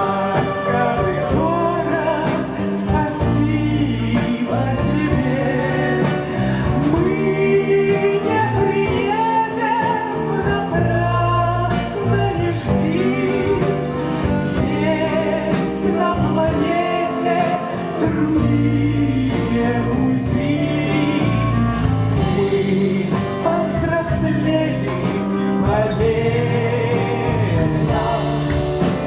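A song performed live: singing over a small band of grand piano, bayan (button accordion), clarinet, bass and drums.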